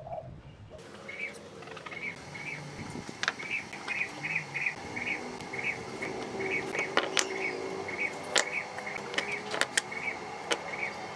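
Fired clay bricks being set down on a concrete floor and knocked against one another, giving scattered sharp clacks and taps. Behind them is a steady repeating high chirp, about two a second, and a low hum.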